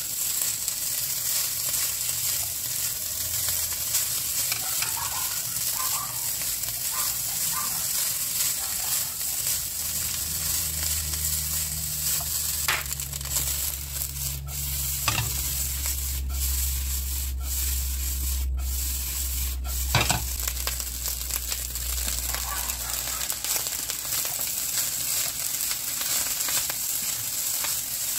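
Yang Chow fried rice sizzling steadily in a nonstick wok as it is stirred and tossed with a spatula. A few sharp knocks of the spatula on the pan come near the middle.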